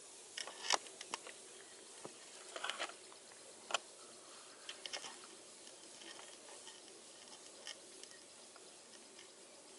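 Faint, irregular light clicks and brief rustles over a steady quiet hiss, the sharpest click a little under a second in and another near four seconds in.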